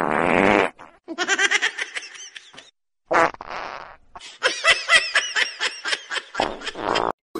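Three short fart noises, each under a second long, with a person laughing in quick bursts between them, hardest in the second half.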